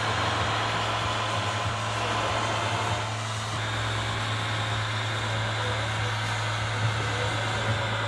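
Radio-controlled model MAN 6x6 tipper truck running, its sound unit giving a steady diesel engine hum, with a brief dip about three seconds in.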